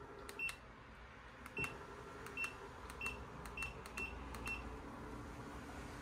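Electric display turntable beeping in answer to remote-control button presses: seven short, high beeps at one pitch over about four seconds, each with a small click.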